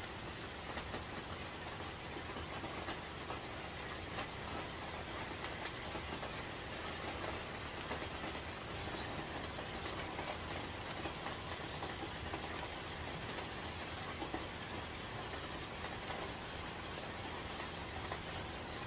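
Heavy rain falling steadily on the roof overhead: a constant hiss dotted with a dense patter of drops.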